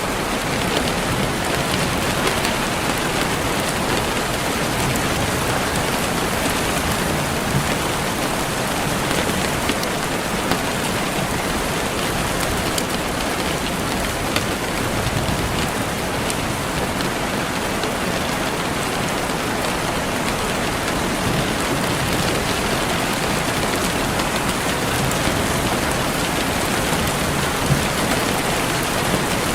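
Steady rain falling on a surface, a dense even hiss with scattered small drop taps.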